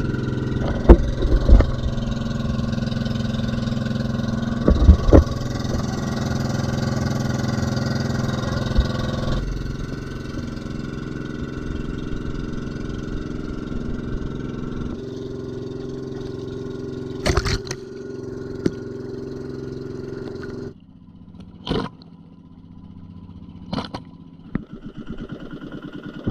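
Engine of a small wooden outrigger boat running steadily under way, its note stepping down around 9 and 15 seconds in, then throttled right back near 21 seconds. Loud knocks about 1 and 5 seconds in, and a few sharp knocks in the last seconds.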